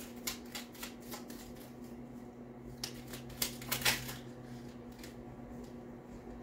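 A deck of tarot cards being shuffled in the hands: a run of soft card clicks and slaps, busiest and loudest about three to four seconds in, over a faint steady low hum.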